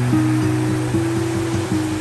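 Gentle instrumental background music, held notes changing about every half second, over the steady rush of flowing river water.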